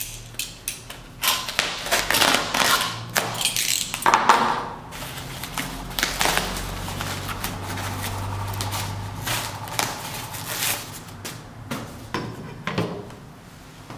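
White wrapping crinkling and rustling as hands tear open the package and peel off the black tape around it, in a run of irregular crackles. A steady low hum runs underneath.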